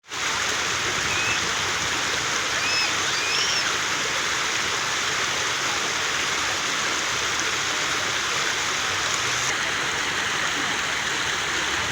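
Steady rush of running water, with a few short high chirps between one and four seconds in.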